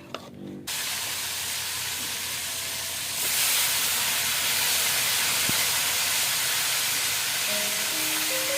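Food frying in hot oil in a pan, a steady sizzle that starts suddenly and gets louder about three seconds in.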